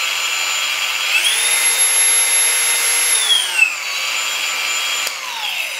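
Hikoki G3613DE 36-volt brushless cordless angle grinder running unloaded at reduced idle speed under its automatic speed control, a steady whine. About a second in it speeds up to a higher pitch, holds for about two seconds, then drops back to idle, and near the end the pitch falls away as the motor winds down.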